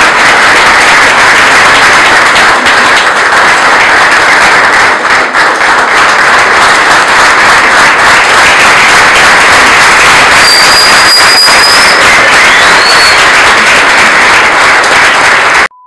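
Theatre audience applauding loudly and steadily, with a couple of short high whistles about ten seconds in. The applause cuts off suddenly just before the end.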